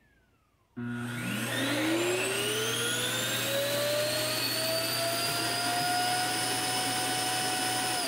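iRobot Roomba j7+ self-emptying base switching on abruptly about a second in with a loud swoosh. Its suction motor spins up with a rising whine, then runs steadily over a low hum as it empties the robot's dustbin into the base.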